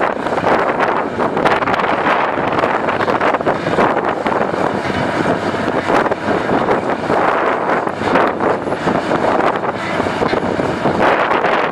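John Deere 890A long-reach excavator's diesel engine running steadily as the machine travels on its crawler tracks, with wind buffeting the microphone.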